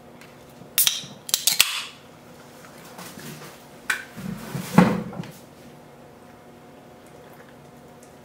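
A soda can cracked open with a sharp click and a short hiss about a second in, followed by a few knocks and clatters of tableware around four to five seconds in.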